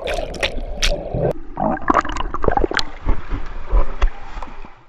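Pool water gurgling and splashing, heard both below and at the surface, with many sharp knocks and clicks. It cuts off suddenly near the end.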